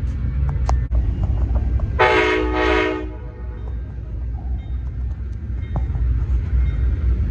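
Train horn sounding one short blast of about a second, about two seconds in, over a steady low rumble.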